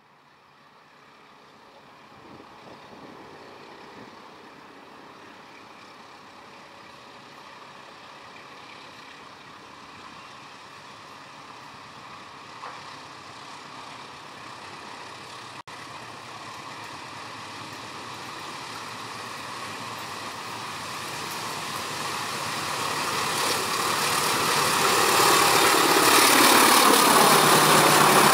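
Indonesian Railways CC206 diesel-electric locomotive hauling a freight train of flat wagons as it approaches. Its engine noise grows steadily louder over the whole stretch and peaks as it passes close near the end, with the sound sweeping down in pitch as it goes by.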